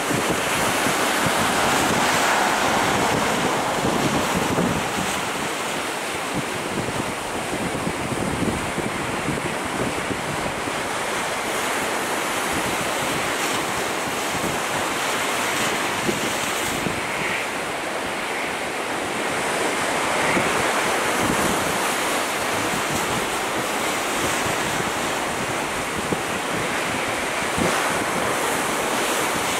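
Jet roar from an Airbus A350-941's two Rolls-Royce Trent XWB turbofans as the airliner passes low over the threshold, touches down and rolls out along the runway. The roar is loudest in the first few seconds, then stays steady.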